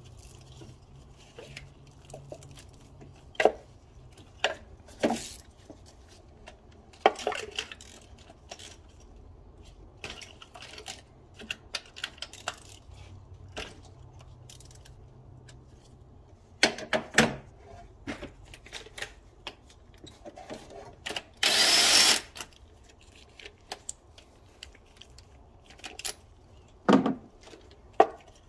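Scattered clicks, taps and knocks of tools and parts being handled around the ignition coils and spark plug wells of a Nissan 3.5 V6 during a spark plug change, with one louder rush of noise lasting about a second roughly three-quarters of the way through.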